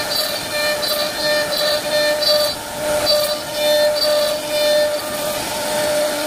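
CNC router spindle cutting wood, a steady whine with higher-pitched tones that come and go in short stretches as the bit works.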